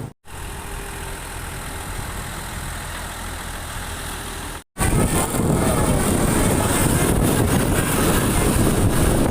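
Motor vehicle engine running as a steady low hum. The sound drops out briefly twice, and after the second break, about halfway through, it comes back louder as engine rumble with rushing wind noise.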